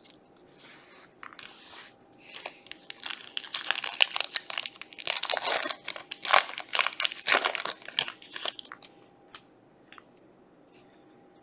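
The shiny foil wrapper of a 2021-22 Panini Prizm Basketball cello pack crinkling and tearing as it is ripped open by hand. The dense crackle starts about two seconds in and stops a little past eight seconds.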